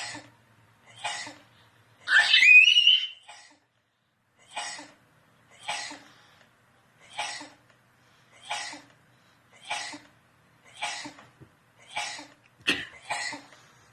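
Short sneezes played back from a video, repeating evenly about once every second and a quarter. About two seconds in, a child gives one loud, high squeal that rises in pitch.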